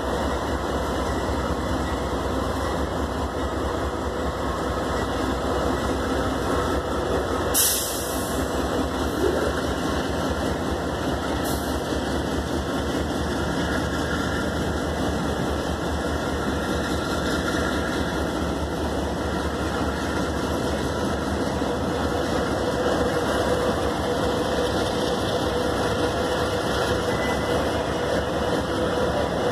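CSX diesel freight locomotives running steadily as they pass close by. Two short sharp clicks come about eight seconds in and again a few seconds later.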